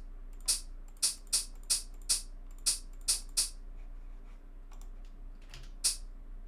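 Short, bright shaker-like hits made from a trimmed vocal sample in a drum sampler, sounding one at a time in an uneven rhythm. About eight hits come in the first three and a half seconds, then one more near the end, over a faint steady hum.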